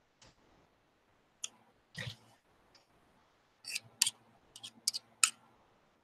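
A knife blade clicking against the edge of a metal belt buckle blank while excess sawdust clay is trimmed off. A few scattered clicks, a duller knock about two seconds in, then a quick run of about six sharp clicks near the end.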